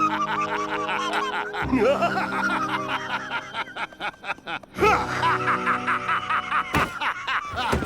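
A cartoon character laughing in quick repeated bursts over sustained background score music, with a brief break a little past halfway.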